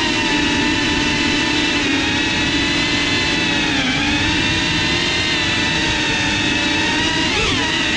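FPV quadcopter's brushless motors and props whining steadily in flight, heard close up from the onboard camera. The pitch sags briefly about four seconds in and dips and rises again near the end.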